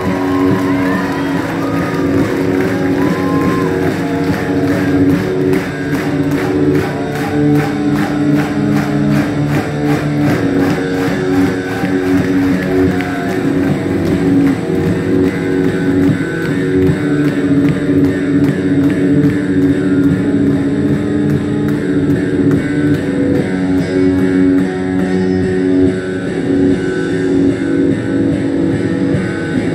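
Live rock band playing: electric guitars ringing over bass guitar, with drums keeping a steady beat.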